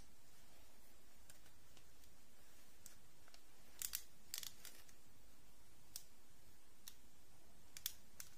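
Scattered small, sharp clicks and snips of hands working with doll-craft materials and tools: a quick pair about four seconds in, a short cluster just after, then single ones later. A steady faint hiss runs underneath.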